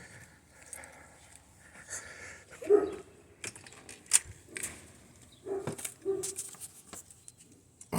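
A dog making three brief, short vocal sounds, whines or yips, with scattered light clicks and knocks between them.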